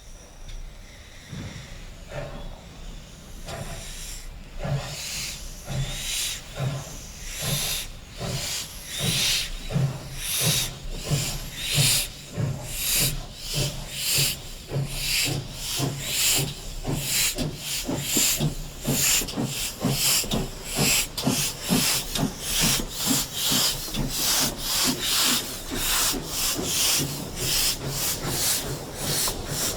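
GWR 64xx-class 0-6-0 pannier tank locomotive no. 6412 getting under way. Its steam exhaust beats start about a second apart and steadily quicken to several a second as it gathers speed.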